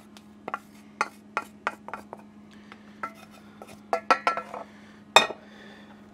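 Wooden spoon knocking and scraping melted chocolate out of a stainless-steel saucepan into a mixing bowl: a series of light taps. About four seconds in comes a cluster of ringing metal clinks and then one sharp knock as the saucepan is set down. A steady low hum runs underneath.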